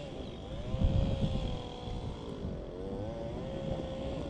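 A distant engine running, its pitch rising, holding, dipping about two and a half seconds in, then climbing and holding again, like a vehicle accelerating through gears. Uneven low rumble of wind on the microphone underneath.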